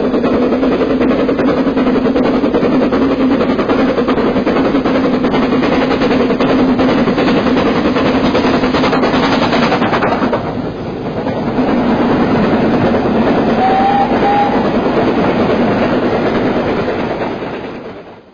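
Train sound effect: a train running on rails with steady clattering, briefly dipping about ten seconds in, with a short, slightly rising tone around fourteen seconds in, then fading out near the end.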